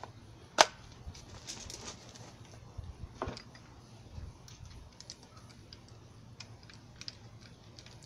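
Small plastic clicks and ticks as the housing of a Marinco twist-lock cord plug is screwed back together by hand, with one sharp click about half a second in and another a little after three seconds.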